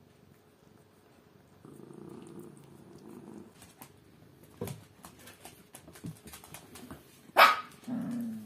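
Pets crowding a hand for raw meat: a low rumbling growl, wet licking and chewing clicks, then one sudden loud sharp cry about seven seconds in, followed by a short low growl that falls away.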